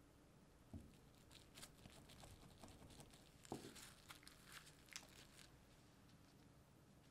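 Faint crinkling and rustling of plastic wrap under gloved hands, with scattered small taps and a soft thud about three and a half seconds in, as a cut strip of frozen cookie dough is lifted and set down on its side.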